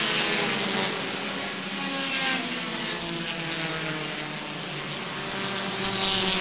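A pack of compact touring race cars running at speed on a paved oval, their engines droning together, growing louder briefly about two seconds in and again near the end as cars pass.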